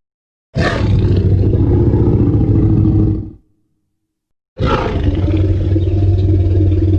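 Tyrannosaurus rex roar sound effect from the Jurassic Park/World films, heard twice. Each roar lasts about three seconds, with a high cry at its start over a deep rumble, and breaks off into silence.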